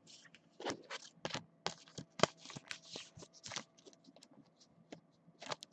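Faint, irregular clicks and crinkles of clear plastic card sleeves being handled and cards slid into them.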